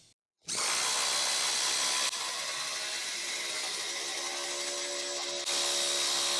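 DeWALT DCF887 brushless impact driver hammering steadily as it drives a half-inch by 8-inch lag screw into stacked timber, starting about half a second in.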